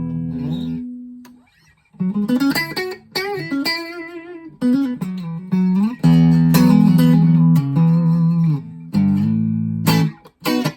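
Schecter OL-PT-TH thinline electric guitar played clean through a small VOX Mini5 practice amp. A held chord rings out and fades away. After a short pause come single-note lead lines with string bends and vibrato, then chords with brief stops between them.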